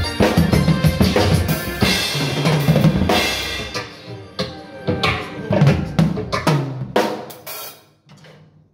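Acoustic drum kit played with sticks: kick, snare and cymbal hits over a recorded song. The drumming and the song stop about eight seconds in.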